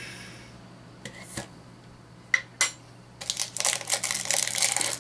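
A few sharp clicks as a blind-box figure canister's lid is twisted and worked loose. About three seconds in, a continuous crackle of plastic and foil packaging being crinkled takes over.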